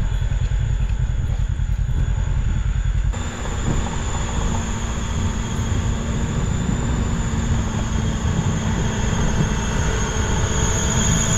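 Kawasaki KRX1000 UTV on Camso 4S1 snow tracks driving through snow: the engine and the tracks make a steady, fast rattling rumble with a high whine over it. The sound picks up about three seconds in, and the whine rises near the end.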